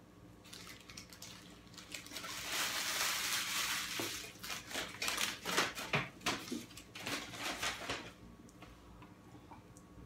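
Fast-food paper wrappers and bags crinkling and rustling as they are unwrapped and handled, densest from about two to four seconds in, then a run of sharp crackles that dies away about eight seconds in.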